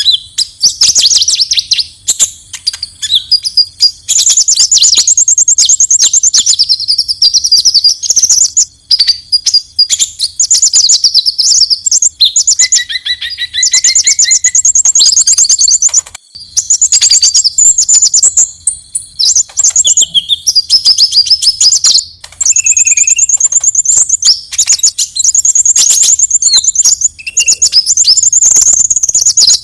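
Konin bird giving its fighting call: fast, high trills and chattering notes in phrase after phrase with short breaks. This is a call of the kind used to provoke rival birds or to tutor songbirds.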